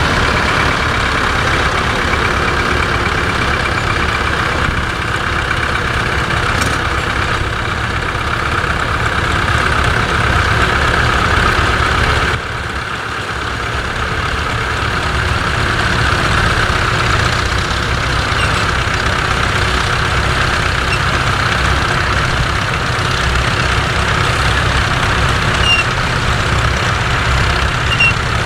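Vintage tractor engine running steadily, its level dipping briefly about twelve seconds in.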